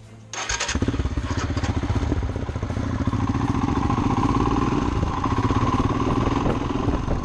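Royal Enfield Himalayan's 411 cc single-cylinder engine running steadily as the motorcycle rides along, heard from on the bike. It comes in abruptly just after the start and cuts off just before the end.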